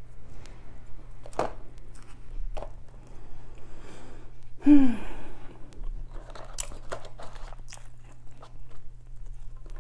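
Close-miked chewing and crunching of food, with many small wet clicks and smacks. About halfway, a short falling vocal sound from the eater stands out as the loudest moment.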